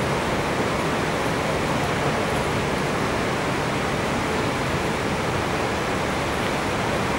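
Steady, even hiss of background noise with no ball strikes or other distinct events standing out.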